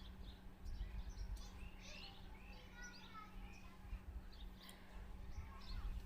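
Small birds chirping repeatedly in the background, over a low rumble and a steady hum.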